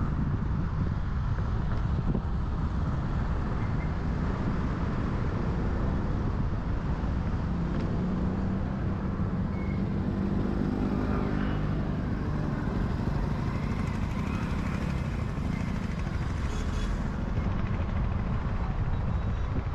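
Car driving on city roads: a steady low rumble of road and wind noise, with an engine note that swells and fades about eight to thirteen seconds in.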